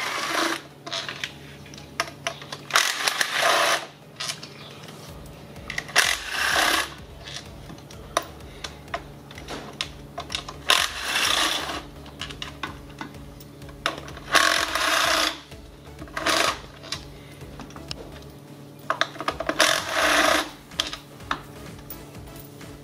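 Cordless ratchet with an 8 mm socket spinning out the small bolts of a GM 6T-series transmission side cover, in about seven short runs a few seconds apart, with light metallic clinks of bolts and socket between them.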